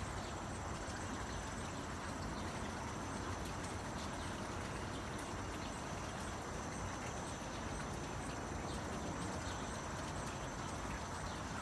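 Steady outdoor background noise with a faint, high insect trill and small chirps repeating about once a second.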